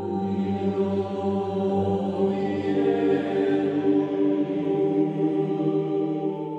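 Background choral chant music: voices holding long, slow-changing sustained chords.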